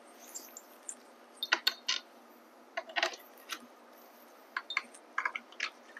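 Light metallic clicks and clinks, in small clusters, as the three mounting bolts are fitted through a Bafang M600 mid-drive motor and the e-bike frame.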